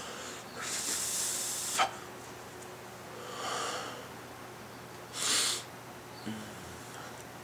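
A man breathing hard through the mouth. First a long blow lasting over a second, then a softer breath midway, then a short sharp blow a little after five seconds.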